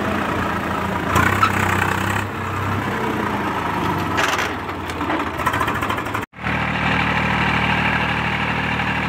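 Farmtrac tractor's diesel engine running steadily, heard close up from the driver's seat. The sound cuts out briefly about six seconds in, then the engine carries on.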